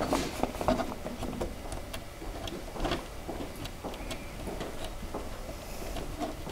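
Faint handling noise: scattered light clicks and rustles as a nut is twisted by hand up onto a bolt under a changing table's top panel.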